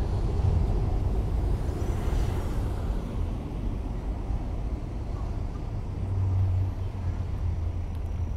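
Tokyo street ambience: steady road-traffic rumble, with a vehicle going by about two seconds in and a louder low hum around two-thirds of the way through.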